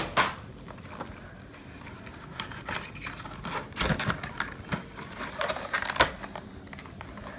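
Cardboard paint-set box being handled and opened: scattered scrapes, rustles and light knocks, the loudest about four and six seconds in.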